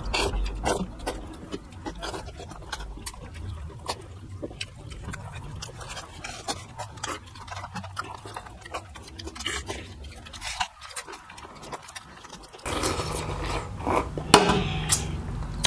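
Close-up eating sounds from people eating dhido and chicken curry: a steady run of short clicks and smacks from chewing and handling the food. About thirteen seconds in, a louder, noisier stretch begins.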